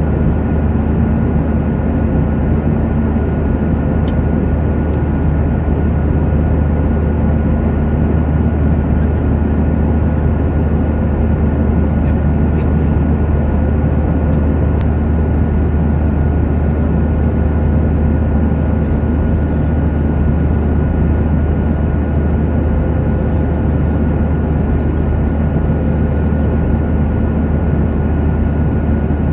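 Steady drone of an airliner heard from inside the cabin in cruise flight: engine and airflow noise with a deep hum and a faint high, steady whine.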